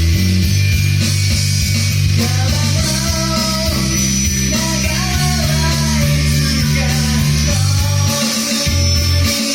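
Rock music with guitar and a steady, pitch-changing bass line.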